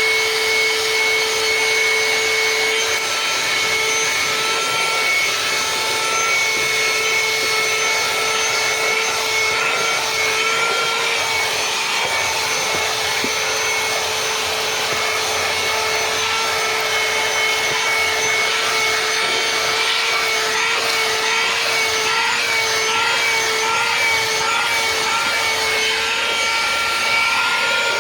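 PatuoPro2 brush vacuum cleaner running steadily: a constant motor whine over airflow hiss, the pitch wavering slightly about three quarters of the way through.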